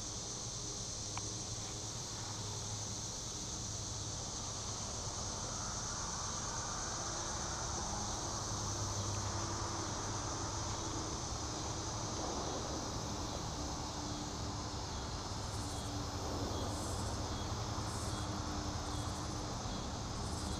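A steady, high insect chorus trills over a low rumbling background. Near the end, short higher chirps come about once a second.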